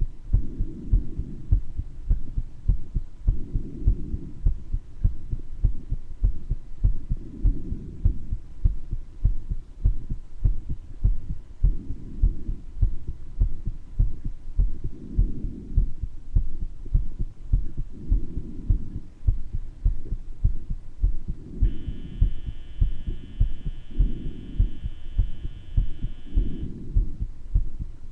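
A human heartbeat with a heart murmur, heard from the chest as a steady train of low thumps. Breath sounds swell every few seconds. In the latter part a steady, whistling tone of several pitches at once lasts about five seconds, typical of a wheeze from mild bronchitis.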